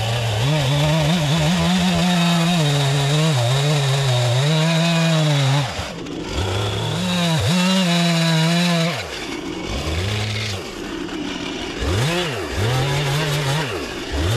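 Two-stroke Stihl chainsaw cutting through a log at full throttle. The engine drops back toward idle several times, then revs up again.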